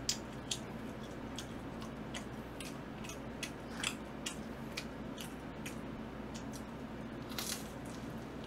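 Close-miked eating sounds of pizza and fried chicken: scattered short clicks and crunches of chewing and handling food over a steady low hum, with a louder crunch a little before the end as a pizza slice is bitten into.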